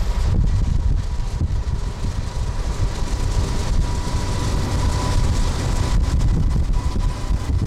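Wind buffeting the microphone and steady road rumble from a car driving alongside a moving freight train, with a faint steady high whine.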